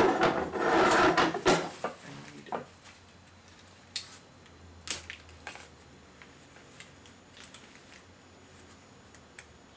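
A wooden snap mousetrap being handled and set on a table: scattered light clicks and taps of its wire bar and catch. A loud rush of noise fills the first two seconds.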